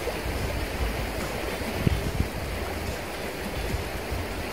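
Shallow river riffle running steadily, the water rushing over stones and around a wader's legs, over a low rumble. There are a couple of brief soft knocks about two seconds in.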